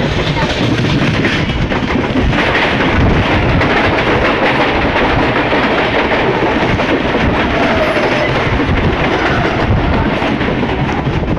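Steady, loud rumble and rush of two trains running side by side: an express coach's wheels on the rails, heard from its open doorway, and a Central Railway suburban local train passing close on the next track. It grows a little louder a couple of seconds in as the local comes alongside.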